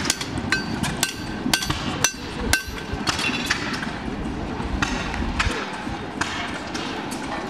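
A farrier's hammer striking steel on an anvil, each blow ringing. The strikes come about twice a second for the first two and a half seconds, then fall to a few scattered, fainter blows.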